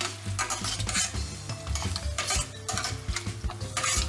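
Honey, butter and soy glaze sizzling in a stainless steel pan as metal tongs turn quail in it. The sizzle swells in repeated bursts, roughly one every half second to a second, with the tongs scraping and clinking against the pan.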